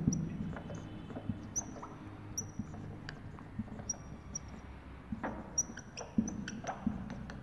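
Dry-erase marker squeaking faintly against a whiteboard in short, high strokes while writing, with a few light taps of the tip on the board between strokes.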